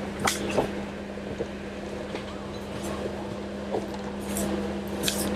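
Off-road 4x4's engine running at a steady low speed while crawling over rock, with scattered sharp knocks and clicks.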